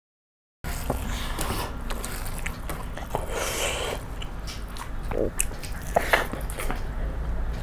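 Close-up eating sounds: a person biting and chewing food, with scattered small crunches and clicks. Dead silence for the first split second.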